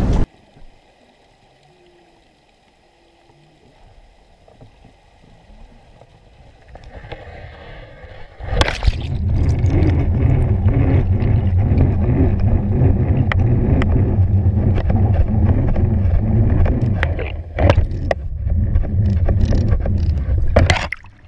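Underwater sound picked up by a GoPro in its waterproof housing on a crab trap. It is quiet at first. About eight seconds in comes a knock, then a loud, steady, low rush of water past the housing as the trap is hauled up, with scattered clicks and knocks of the trap.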